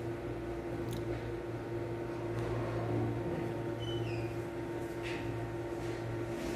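A steady low machine hum, like a motor or an appliance running. There are a few faint clicks, and a short high chirp comes about four seconds in.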